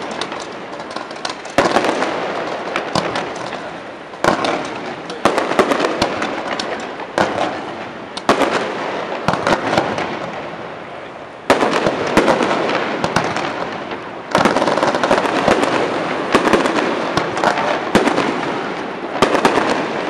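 Fireworks display: aerial shells bursting in sharp bangs every second or two, each followed by crackling that fades away, with clusters of quick bangs about 12 and 19 seconds in.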